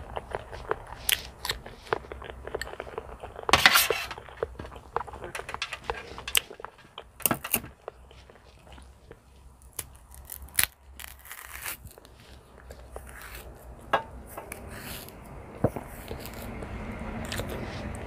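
Close-miked eating sounds: soft banana being chewed, with many wet mouth clicks and smacks and a louder burst a few seconds in. Later a banana is pulled off the bunch and its peel torn back.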